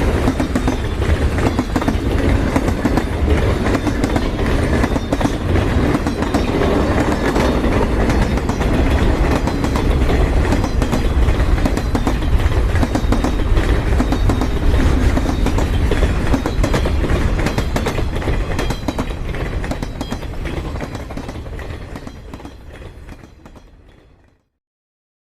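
Train sound effect: a heavy train running, with a deep low rumble and a dense run of rapid clicks over it. It fades out over the last several seconds and ends a second before the end.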